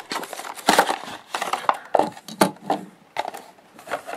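Cardboard-and-plastic blister packaging of a die-cast toy truck being torn open and crumpled by hand: irregular crackles, rustles and snaps.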